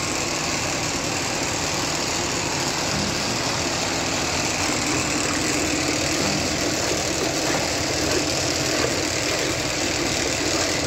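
Steady rumbling noise from a dye vat being heated to near the boil, about 95 degrees, with hot steam rising off the dye liquor.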